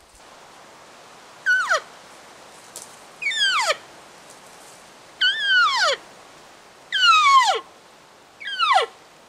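Hunter's elk call imitating cow elk: five mews that each slide steeply down in pitch, about one every one and a half to two seconds. The last one is blown through a long calling tube.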